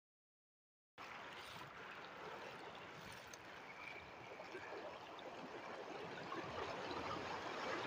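After about a second of dead silence, sea water washing and rushing over shoreline rocks sets in as a steady sound that slowly grows louder.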